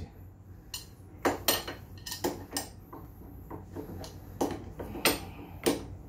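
A steel wrench clinking against the steering stem nut and top clamp of a motorcycle's front fork as it is fitted and turned, a series of sharp metal clinks at irregular intervals. The stem nut is being adjusted to cure a loose, rattling steering head.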